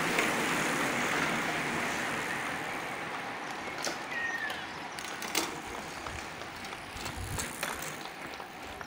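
A group of road bikes rolling past, their tyres hissing on the tarmac, the hiss fading as the pack thins out, with a few sharp clicks in the middle.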